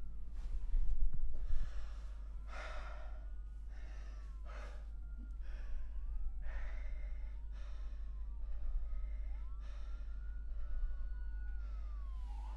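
Sirens wailing in the distance, two or more of them, their pitches slowly rising and falling and crossing one another, over repeated heavy, shaky breaths and sighs. A dull low thump about a second in is the loudest moment.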